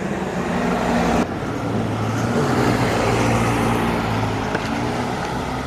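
Car driving along a road: steady engine and road noise with a low hum, changing abruptly about a second in.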